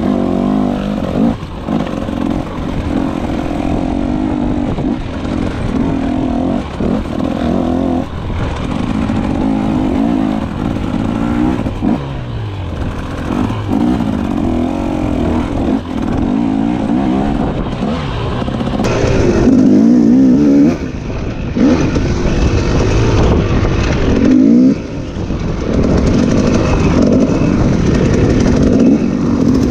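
KTM dirt bike engine running hard, revving up and down over and over as the rider works the throttle and gears. It gets louder about two thirds of the way through.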